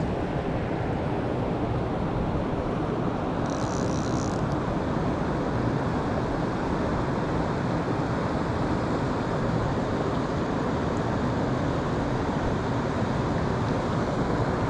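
Steady rushing of river current flowing past close to the microphone.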